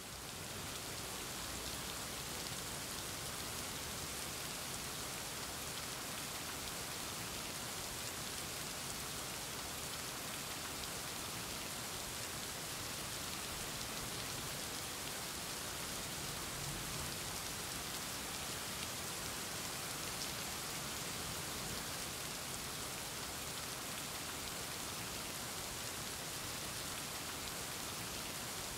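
Heavy rain falling steadily, an even hiss of water.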